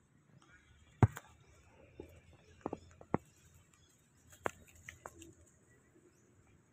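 Footsteps on dry leaves and twigs: a handful of short, sharp crackles spread over a few seconds, the loudest about a second in.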